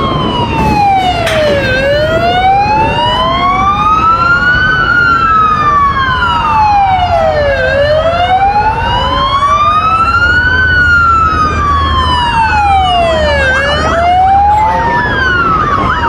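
Two wailing police sirens, each sweeping slowly up and down about once every six seconds, running slightly out of step with each other.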